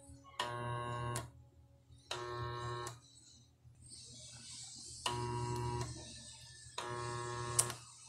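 Washing machine motor buzzing with a mains hum in four short bursts, each just under a second, with a click at the start and end of each as its wires are touched to power and pulled away. The motor humming when powered is the fault being traced: in the video this humming-only problem is put down to a grounded motor.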